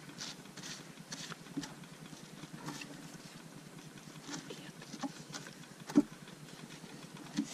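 Soft scattered rustles and light clicks of playing cards being handled and passed around a table, with a sharper tap about six seconds in.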